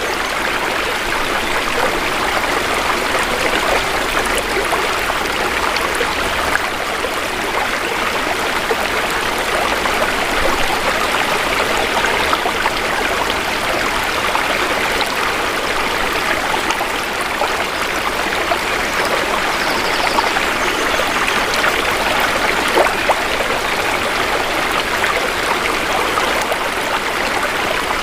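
Shallow river water flowing steadily, an even rushing and trickling.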